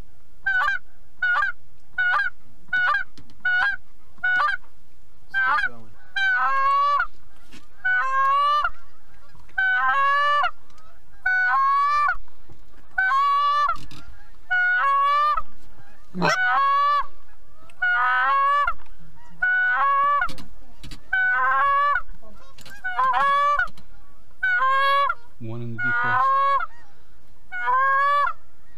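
Goose honks repeated one after another: short quick clucks about two a second at first, then longer honks roughly once a second, each with a sharp break in pitch.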